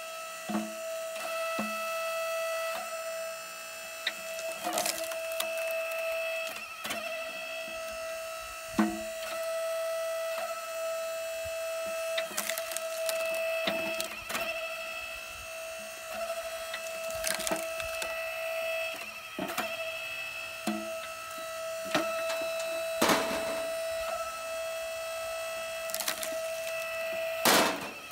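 Split Fire 1165 electric log splitter running with a steady high hum while it splits short hickory chunks: repeated sharp cracks and knocks as the wood splits apart and the pieces are pushed off the end.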